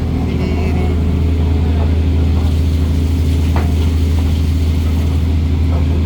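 Fishing boat's engine running steadily with a deep, even drone, with a few faint knocks over it.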